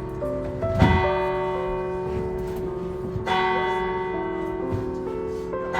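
Church bells ringing: several bell tones overlap and hang on, with fresh strokes about a second in and again a little past three seconds.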